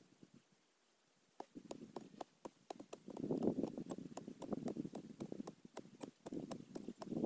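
Short-handled hoes chopping repeatedly into dry, ash-covered soil: a run of dull thuds with sharp knocks, about three a second, from two tools working at once. The knocking starts about a second and a half in.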